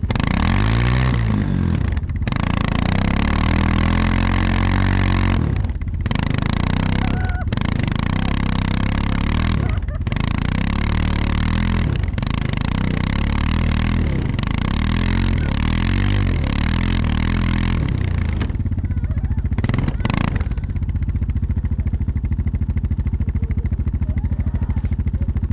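ATV engine running under load while towing a rider through snow, the throttle repeatedly easing off and opening up again so the pitch falls and climbs every second or two, then running steadier near the end.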